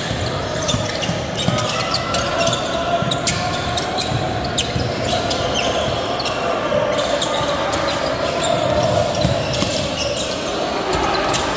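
A basketball being dribbled and sneakers squeaking on a hardwood gym floor during live play, echoing in a large hall, over a steady murmur of voices.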